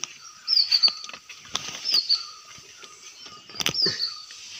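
A bird calling over and over: a short high whistled note that slides down and then holds, about four times. A few sharp clicks and taps come in between.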